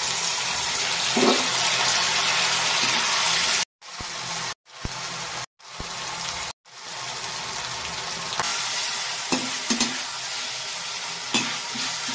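Hot oil sizzling loudly in a metal kadai as sliced onions are tipped in, broken by several brief silences. Frying then goes on more quietly, while a metal spatula stirring the spice paste clicks and scrapes against the pan a few times near the end.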